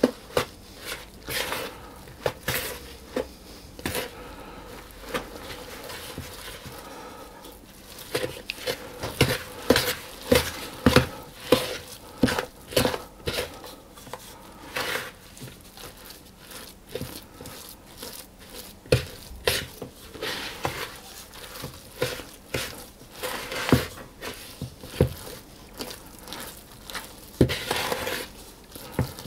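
Wooden spoon stirring a thick, stiff cake batter of flour, sugar, egg and tea-soaked currants and sultanas in a mixing bowl: irregular knocks and scrapes of the spoon against the bowl.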